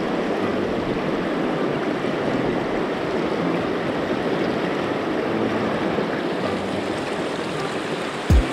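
River water running steadily over a shallow riffle, an even rushing noise. A brief low thump near the end.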